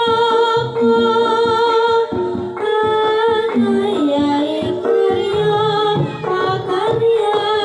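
Jaranan accompaniment music: a high melody moving through long, wavering held notes over a pattern of drum strokes.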